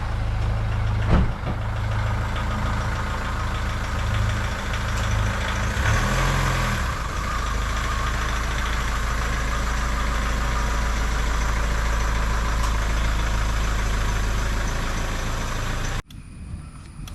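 A recovery truck's engine idling steadily with a deep rumble, shifting briefly about six seconds in, then cutting off abruptly near the end.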